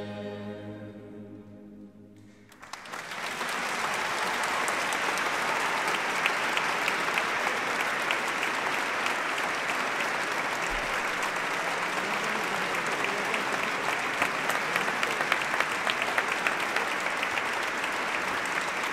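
A choir and small string-and-piano ensemble hold a final chord that fades out. About two and a half seconds in, the audience breaks into steady applause that continues.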